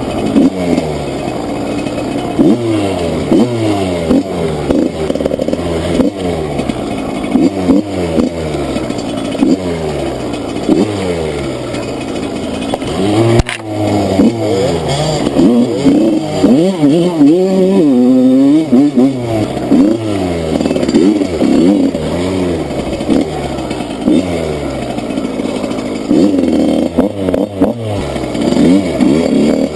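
Enduro motorcycle engine revving up and dropping back again and again as it is ridden off-road, with one longer, higher rev in the middle. Scattered knocks and clatter run through it.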